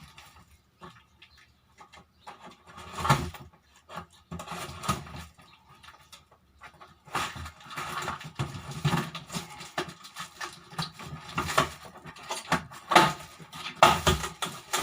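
Plastic table-fan parts being handled and fitted together by hand: irregular clicks, knocks and rustling, busier in the second half.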